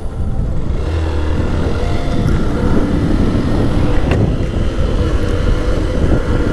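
Motorcycle running along the road, a steady engine note with rumble that gets a little fuller about a second in.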